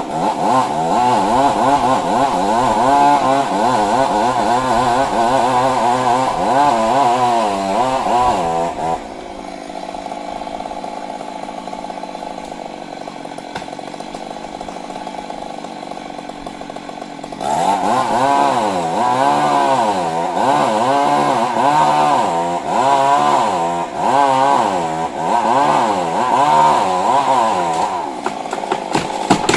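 Stihl MS 382 two-stroke chainsaw at high revs, its pitch wavering as it cuts under load. About nine seconds in it drops to a quieter, steady low idle. It throttles back up at about seventeen seconds and cuts again.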